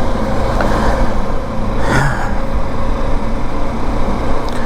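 KTM 390 Adventure's single-cylinder engine running steadily under way, with wind rumbling on the microphone. A brief louder noise rises over it about two seconds in.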